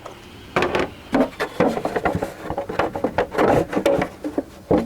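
Irregular rubbing, rustling and light knocks of objects being handled, starting about half a second in.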